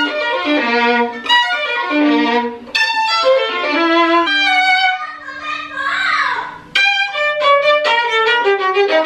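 Solo violin played with a bow: a melody of quick short notes, with one long held note in the middle.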